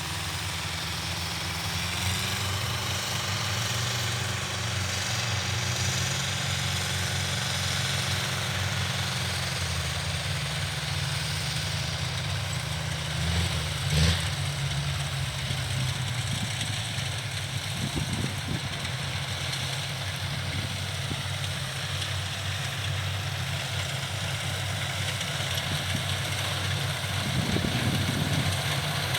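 Kubota DC70 rice combine harvesters' diesel engines running steadily, with one brief thump about halfway through.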